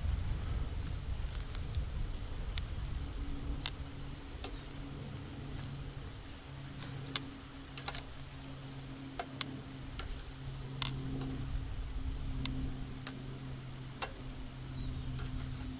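Bacon and eggs frying over campfire embers: irregular sharp crackles and spits of hot fat over a light sizzle. A steady low hum runs underneath from about three seconds in.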